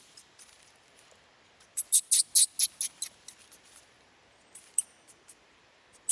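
Baby monkey giving a rapid run of short, high-pitched squeaks, about five a second, for about a second, starting a couple of seconds in. A few single squeaks follow near the end.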